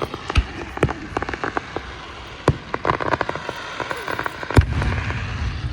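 Aerial fireworks going off: a rapid run of sharp crackling pops, with two heavier booms about two and a half and four and a half seconds in.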